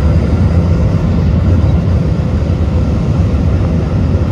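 Jet airliner in flight heard from inside the cabin: the turbofan engines and airflow make a steady low rumble, with a faint steady tone above it.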